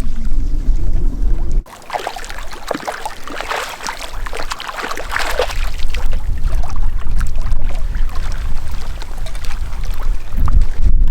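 Irregular water splashing and sloshing in the lake, busiest a couple of seconds in, with wind rumbling on the microphone at the start and again building near the end.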